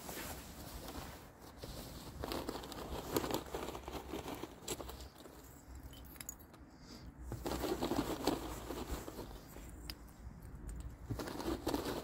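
Plastic bag crinkling and rustling as lumps of charcoal are shaken out of it onto a soil bed, in three stretches with a few light clicks among them.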